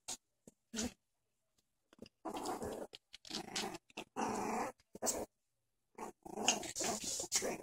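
Two puppies play-fighting and growling at each other in short, broken bursts, with a pause of about a second soon after the start.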